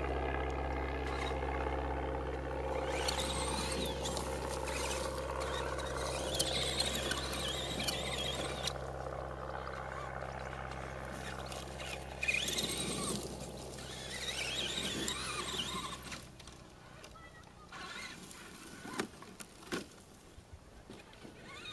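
Traxxas Summit RC crawler truck's electric motor and geared drivetrain running under throttle with a steady hum and a wavering higher whine, cutting out about three-quarters of the way through. A few light knocks follow.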